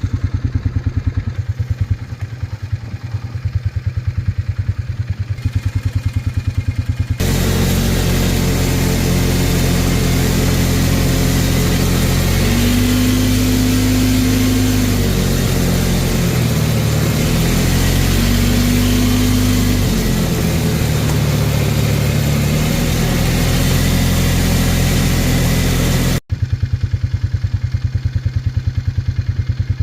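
ATV engine. For the first several seconds it runs at idle with an even pulsing beat. It then switches abruptly to a louder, steadier stretch of running in which the pitch rises and falls twice. Near the end it cuts abruptly back to the pulsing idle.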